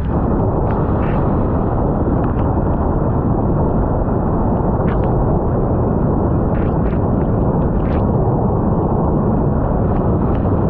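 Wind buffeting a GoPro Hero 9's microphone as a steady, loud rumbling rush, with a few short sharp ticks scattered through it.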